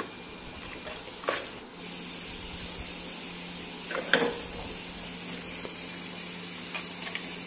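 Beef masala sizzling and frying in an aluminium pressure cooker as a thin steady hiss. A spoon scrapes lightly through it about a second in and again about four seconds in.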